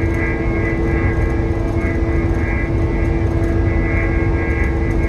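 Train horn sounding one long, held chord, heard inside the commuter coach over the steady rumble of the train running on the rails.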